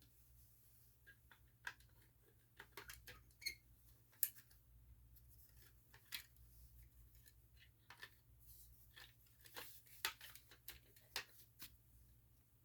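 Plastic smoke alarm housings being handled and set down: scattered light clicks and knocks at irregular intervals, with a few louder taps around four and ten seconds in.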